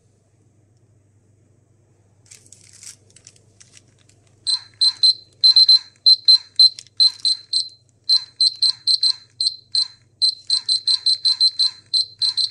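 Polimaster PM1703-GNA dosimeter's buzzer beeping, short high-pitched electronic beeps at uneven intervals, often in quick runs, starting about a third of the way in after a faint rustle.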